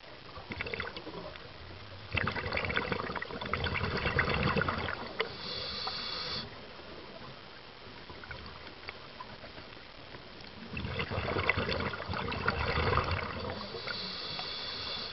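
A scuba diver breathing through a regulator, heard underwater: two long stretches of bubbling, crackling exhalation, each followed by a shorter hiss, over steady water hiss.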